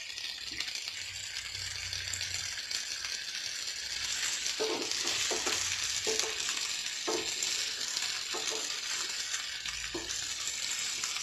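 Masala-coated Indian mackerel shallow-frying in oil in a non-stick pan: a steady sizzle that grows a little louder about four seconds in. Several knocks in the second half as the fish are turned over by hand in the pan.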